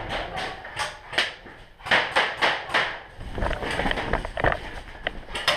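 Quick, irregular footsteps and gear clatter of a player running, a few knocks a second.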